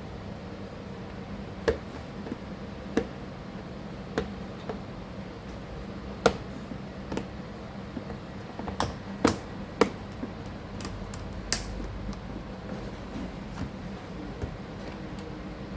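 Irregular small clicks and taps of a laptop being handled and worked on by hand, about a dozen sharp ticks, several close together in the middle, over a steady low hum.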